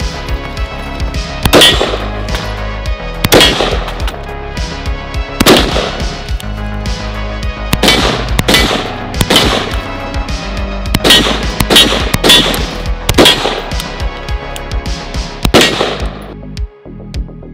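Gunfire from AR-15 carbines, shots in quick strings and singles, mixed with background music with a steady bass. The shooting stops about a second before the end, leaving the music.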